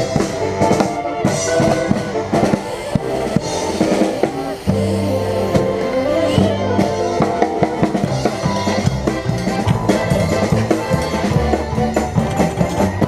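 Mummers string band playing live, with drums, heard close from the upright bass. Strong, steady bass notes come in about five seconds in.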